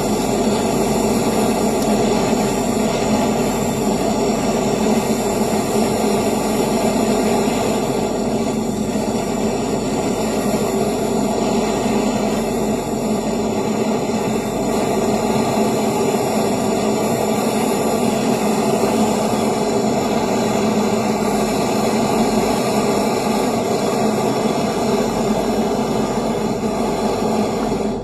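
Gas brazing torch running steadily on a refrigerator's copper refrigerant pipe, a loud constant roar with a steady hum in it, cut off abruptly at the end.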